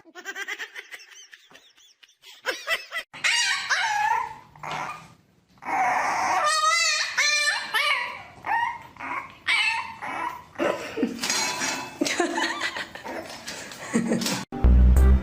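A dog whining and yipping in a series of short pitched calls, one with a quickly wavering pitch about midway.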